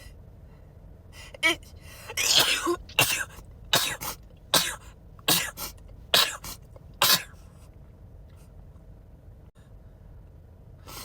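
A person sneezing in a fast run of about eight sneezes in a row, a little under a second apart, from about a second and a half in until about seven seconds in.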